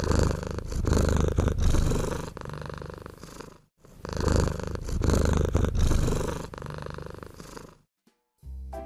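A cat purring close up in two long stretches, each starting loud and fading, with a short break about four seconds in.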